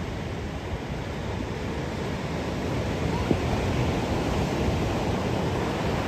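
Ocean surf: waves breaking and washing in as a steady, even rushing noise.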